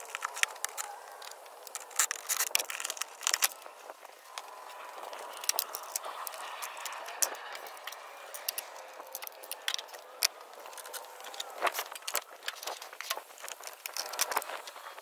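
A stock plastic air-intake box and tube being unclipped and lifted out of an engine bay: scattered clicks, knocks and light rattles of plastic parts.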